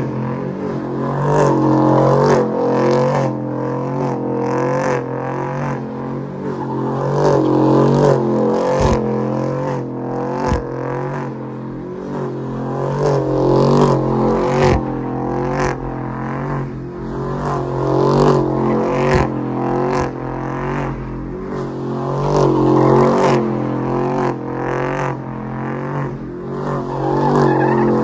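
A truck doing a burnout: the engine is held at high revs while the spinning rear tires squeal, the squeal wavering in pitch and swelling in waves every few seconds.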